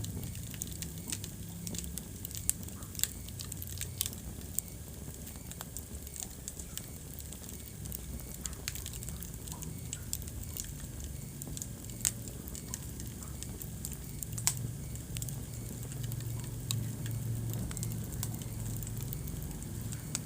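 Wood fire burning in a fireplace: steady crackling with scattered sharp pops, a few louder ones about two and a half, three, four, twelve and fourteen and a half seconds in, over a low rumble of flame.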